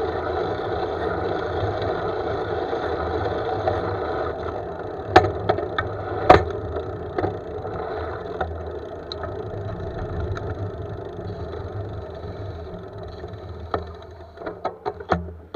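Steady rush of wind and road noise picked up by a handlebar-mounted camera on a moving road bike, fading as the bike slows near the end. Sharp clicks and knocks from the bike come about five to seven seconds in, and several more come just before the end.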